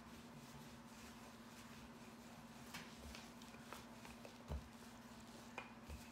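Wooden rolling pin rolling out pizza dough on a wooden board: a few faint, soft knocks, the clearest about four and a half seconds in, over a low steady hum.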